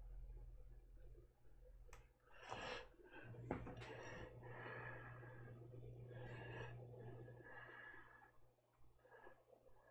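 Faint breathing close to the microphone, in soft hazy breaths about a second long, over a low steady hum, with two small clicks about two and three and a half seconds in.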